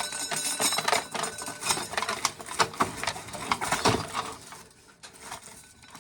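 An irregular run of small clicks and rattles, like hard objects being handled, dying away about four seconds in.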